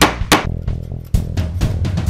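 Claw hammer striking a wooden dowel into an oak block, two sharp blows in the first half second, with weaker knocks after. Background guitar music plays throughout.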